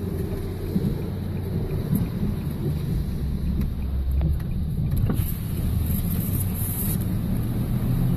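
Car cabin noise while driving: a steady low rumble of engine and road, with a burst of hiss between about five and seven seconds in.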